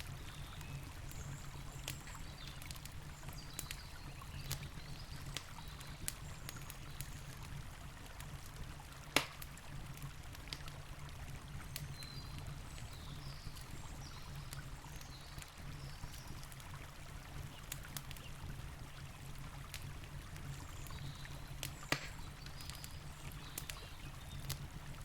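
Campfire crackling, with scattered sharp pops, two of them louder than the rest: one about nine seconds in and one a little before the end. Under it runs the steady rush of a river.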